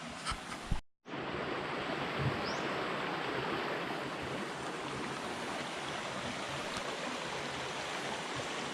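Waterfall rushing steadily, the water running strong; the sound drops out briefly about a second in, then carries on.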